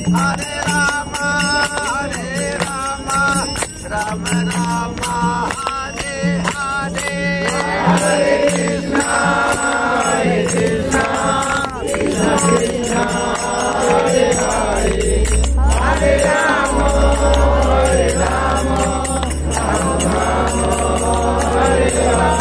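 A group of devotees singing a devotional chant (kirtan) together, with hands clapping in time. A low steady rumble joins about two-thirds of the way through.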